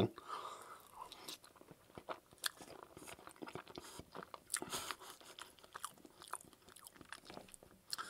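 Close-miked chewing of a mouthful of poutine, fries with gravy and cheese curds, heard as irregular soft clicks of the mouth.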